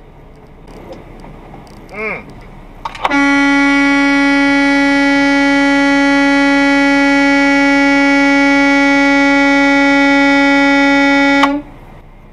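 Semi-truck horn held in one long, steady blast of about eight seconds that cuts off suddenly, sounded at a van stopped in the lane ahead. A brief wavering tone comes about two seconds in, just before it.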